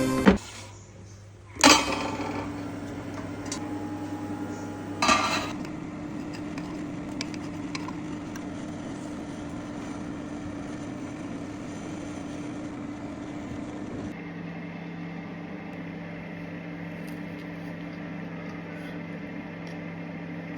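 Kitchen sounds: two sharp clinks of dishware about a second and a half in and again about five seconds in, then a steady hum with an even hiss, the pitch of the hum dropping a little about fourteen seconds in.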